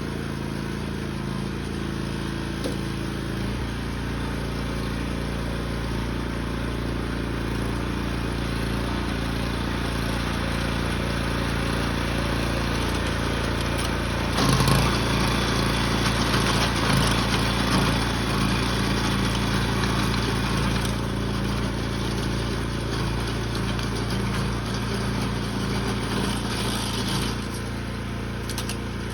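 Small engine running steadily. About halfway through it grows louder and harsher for roughly ten seconds, then settles back to its earlier note.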